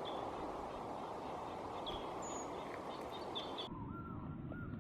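Forest ambience: a steady rushing background noise with small birds chirping briefly now and then. About three-quarters of the way in, the sound changes abruptly and a few short rising-and-falling calls follow.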